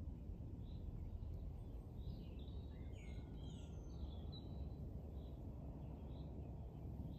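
Small birds chirping in short, repeated calls, busiest around the middle, over a steady low outdoor rumble.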